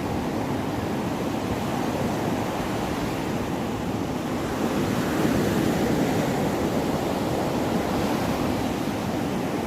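Sea surf washing steadily on the shore, with some wind on the microphone; the rush swells a little about five seconds in.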